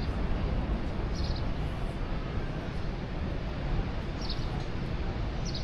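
Small birds chirping in short high bursts, about four times, over a steady low rumble of outdoor background noise.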